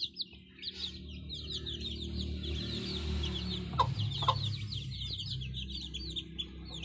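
A brood of Australorp chicks peeping steadily in quick, high, falling notes. About four seconds in, the black Aseel hen brooding them gives two short clucks.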